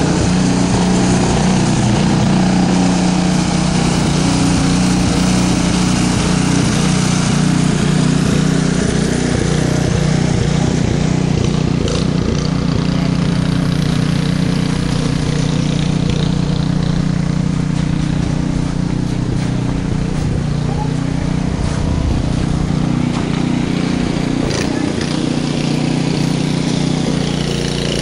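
Small engine running steadily at a constant speed, a low hum with even overtones that does not change pitch.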